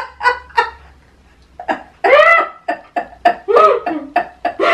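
A young woman and an elderly woman laughing hard together. A quick run of short laugh pulses dies away about a second in, then louder laughing picks up again, with long voiced cries that rise and fall.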